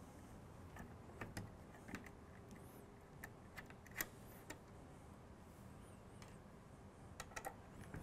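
Faint, scattered clicks and ticks of a small Phillips screwdriver working the screws on the top of a Framework Desktop's case. The sharpest click comes about four seconds in, with a few quick ones near the end.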